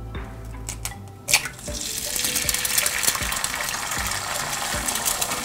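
An egg frying in oil in a pan: a sharp click a little over a second in, then a steady sizzle.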